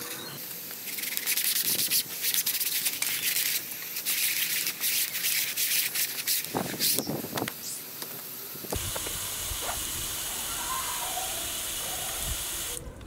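Window screen being scrubbed through the brushes of a Xero screen cleaner: a run of rasping, irregular brush strokes across the mesh. From about nine seconds in this gives way to a steady hiss.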